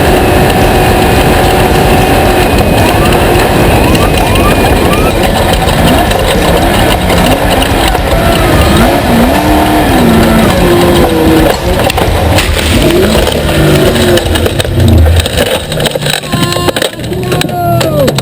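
Off-road race vehicle engines running hard. The pitch holds steady for the first few seconds, then rises and falls again and again as they rev, accelerate and shift.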